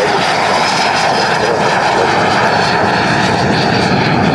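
L-39 Albatros jet trainer's turbofan engine passing close and loud: a steady rushing jet noise with a thin high whine.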